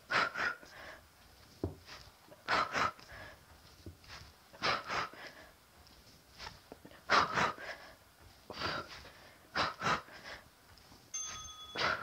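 A woman's hard breathing under exertion during sit-up ab strikes: sharp forced exhales, mostly in quick pairs, about every two seconds.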